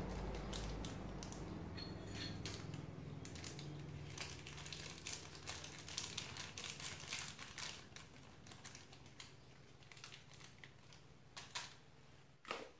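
Plastic bag crinkling as small beads are squeezed out of it into a bowl of slime, a rapid, irregular patter of faint crackles and clicks that is busiest in the middle and thins out toward the end, with a couple of last clicks.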